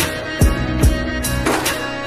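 Slowed, reverb-heavy Punjabi pop song in an instrumental break: sustained tones over a beat of deep kick drums and a snare, with no singing.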